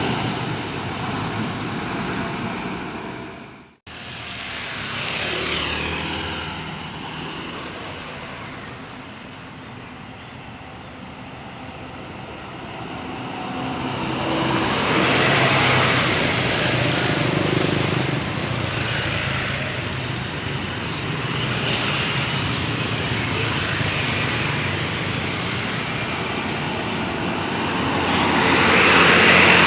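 Diesel buses running and pulling away amid road traffic noise, with a sudden brief cut to silence about four seconds in. The engine noise swells from about the middle and again near the end as a bus comes closer.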